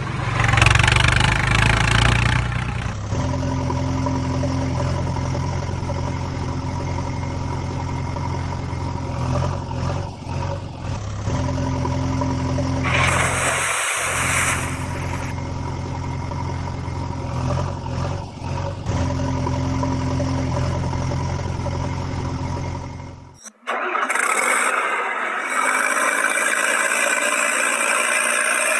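Steady engine running sound, a recorded loop with a low hum and a higher tone that comes back every several seconds. A few seconds before the end it cuts off abruptly and gives way to a hissier sound with no low hum.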